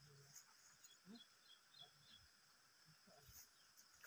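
Near silence: faint forest ambience with a few soft, scattered chirps and murmurs.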